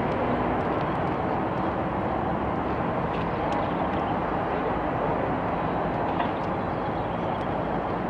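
Steady outdoor background rumble, like distant engine noise, with a few faint ticks.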